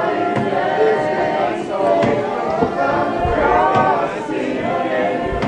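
A group of people singing a worship song together, many voices holding long notes.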